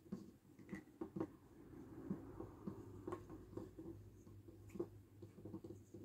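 Light taps and small clicks of fingertips and a thin sheet against a pink plastic toy bunk bed, scattered irregularly, with a soft rustle as the sheet is pushed into the lower bunk.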